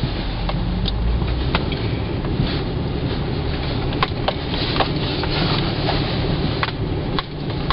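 Hyundai Santa Fe driving over a snowy trail, heard from inside the cabin: a steady low rumble of engine and tyres, with scattered sharp clicks and knocks every second or so.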